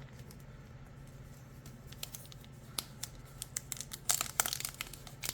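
Foil booster-pack wrapper crinkling and tearing as it is handled and opened: faint at first, then a run of sharp crackles from about two seconds in that grow louder near the end, over a low steady hum.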